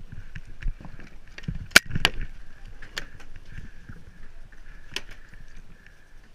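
Paintball shots and balls striking close by: scattered sharp cracks, the loudest two in quick succession about two seconds in and single ones around three and five seconds, over a few dull thumps early on.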